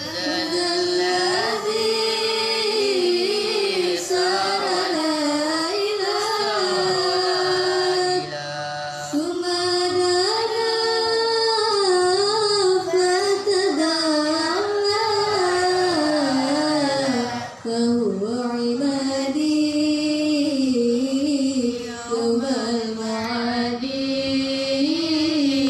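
A young female voice singing solo into a microphone. The melody is ornamented, with long held notes and wavering pitch bends, and the singer pauses briefly for breath twice.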